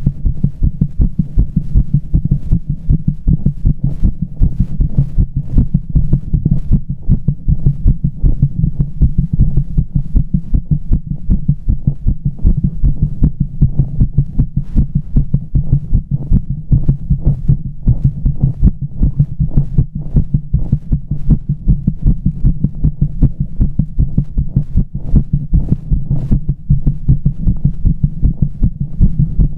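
A person's own heartbeat picked up close on the chest: fast, regular beats, deep and low in pitch, with pressure behind each beat.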